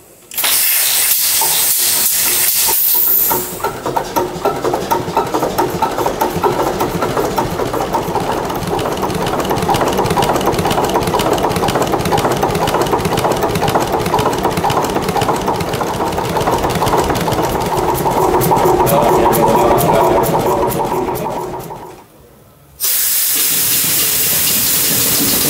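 Historic diesel engine being air-started: a loud rush of compressed starting air for about three seconds, then the engine catches and runs with a rapid pulsing beat of firing strokes. About 22 seconds in the sound falls away, and near the end another loud rush of starting air begins.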